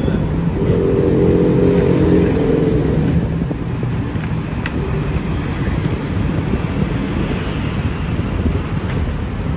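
Street traffic rumble, with a motor vehicle engine passing close by in the first three seconds and fading away, then steady traffic noise; a single light click about halfway through.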